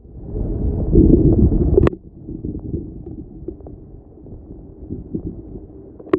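Low rumble of a 1/10-scale RC Defender 90 crawler driving over rough ground, with scattered clicks and knocks. A sharp click comes about two seconds in, and the rumble then drops to a quieter level.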